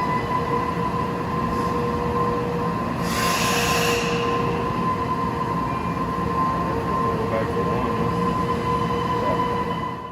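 2006 Okuma Macturn 550-W CNC turning/milling center running, a steady machine noise with a constant whine. A burst of air-like hiss lasts about a second, starting about three seconds in.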